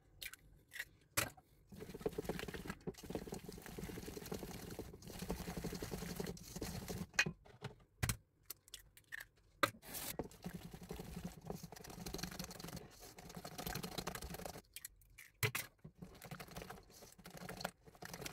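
A few sharp clicks as an egg is cracked open over a metal mixing bowl. Then a hand wire whisk beats the egg into creamed butter and sugar: a fast, scratchy rattle of wires against the bowl, with a couple of short pauses.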